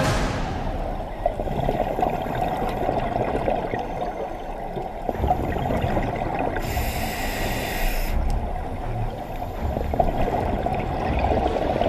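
Scuba diver's breathing heard underwater through a camera housing: muffled bubbling and gurgling of exhaled air from the regulator. About seven seconds in there is a hiss lasting about a second, typical of an inhale through the regulator.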